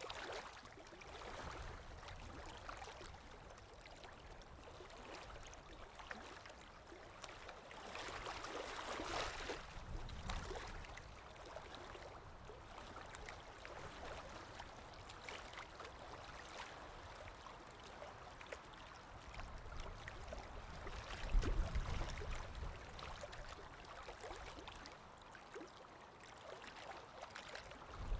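Stream water running and gurgling steadily, swelling a little now and then, with a brief low rumble about two thirds of the way through.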